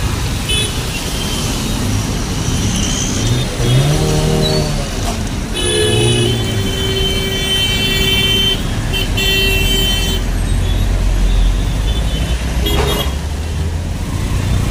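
Road traffic on a wet street: cars, scooters and auto-rickshaws passing close over a steady rumble. A vehicle horn is held for about two and a half seconds, starting about six seconds in, and sounds again a few seconds later.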